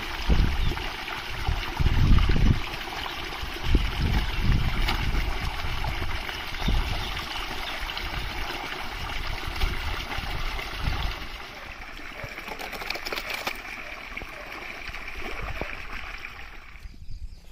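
Water gushing steadily from a hose pipe onto the ground, with irregular splashing as hands wash chopped meat in a metal bowl held under the flow. The water sound stops abruptly shortly before the end.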